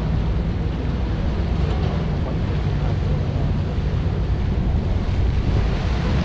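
Wind rumbling on the microphone over the steady drone of boat engines, from motorboats and a diesel waterbus passing close below.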